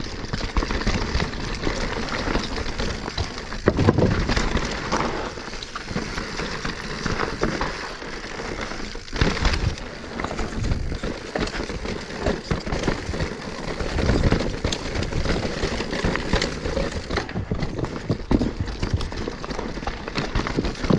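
A Specialized Stumpjumper Evo Alloy full-suspension mountain bike riding down a rough, loose, rocky and rooty singletrack: tyres rolling and crunching over dirt and rock, with the chain and frame clattering and a steady run of knocks from bumps. Heavier thuds come about four, nine and fourteen seconds in.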